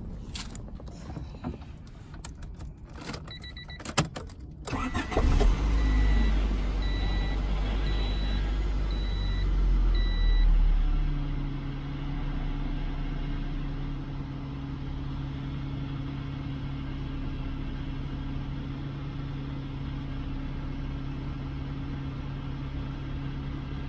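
Keys rattle in the ignition, then the starter cranks the 1995 Honda Civic Si's 1.6-litre four-cylinder engine. It catches about five seconds in, runs at a raised fast idle, and drops to a steady idle about halfway through. A warning chime beeps repeatedly for several seconds around the start.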